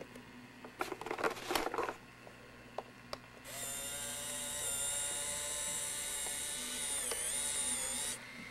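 Zenith VHS-C camcorder's tape mechanism: a few light clicks, then its small motor whines steadily for about four and a half seconds as it starts playing the tape. The pitch dips briefly near the end before the motor stops.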